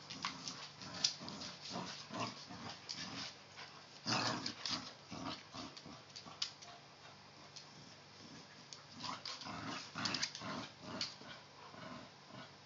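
A bulldog and another dog play-fighting over a rope toy: low play growls and scuffling on a hardwood floor, with louder bursts about four and ten seconds in.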